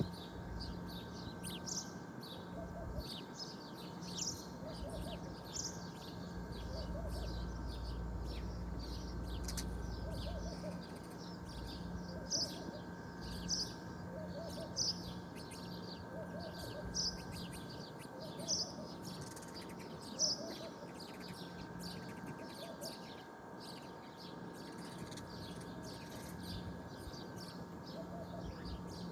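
Small birds chirping: many short, high calls repeated over and over, over a faint steady hum.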